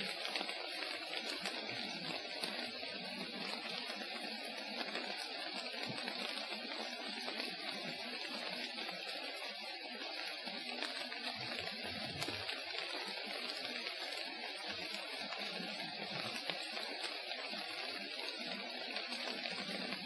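Rain falling steadily on the forest canopy under hemlock trees: an even hiss dotted with many tiny drop ticks.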